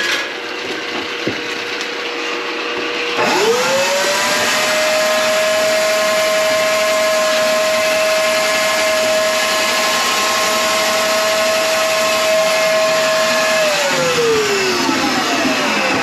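Electric motor running. About three seconds in it speeds up sharply into a steady high whine, then winds down with falling pitch near the end, as when it is switched off.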